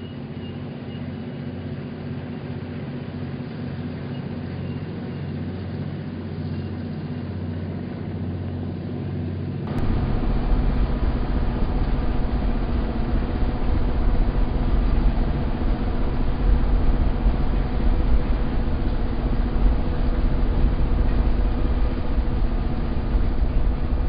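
N-scale model freight train running on the layout: a steady low hum with a few steady tones, then, about ten seconds in, a sudden change to a louder, fuller rumble as the cars roll across a model truss bridge close by.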